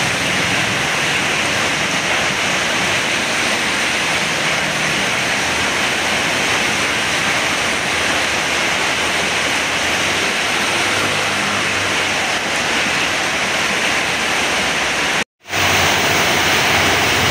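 Heavy rain pouring down in a steady, dense hiss. It cuts out for a moment near the end.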